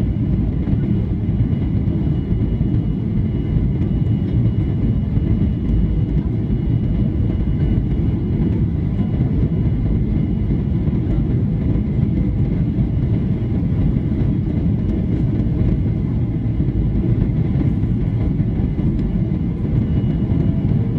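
Steady cabin noise inside a Boeing 737-800 airliner: the low rumble of its engines and airflow, with a faint high whine held on top.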